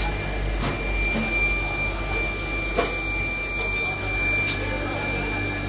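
A steady high-pitched whine over a low hum of workshop machinery, with a few short clinks of metal frames being handled and stacked, the sharpest just under three seconds in.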